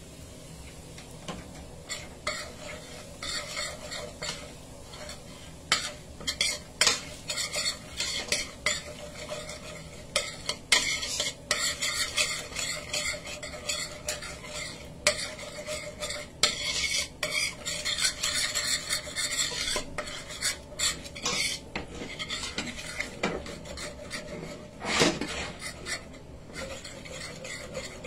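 Metal spoon stirring and scraping around a metal pot with many quick clinks, over the sizzle of curry powder frying in hot oil: the curry being 'burned' (toasted in oil) before the meat goes in.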